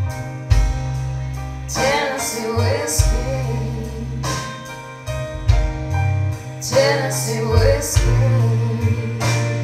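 A song played back through hi-fi speakers with a subwoofer: a sung melody in phrases over a band with deep bass notes and regular drum hits.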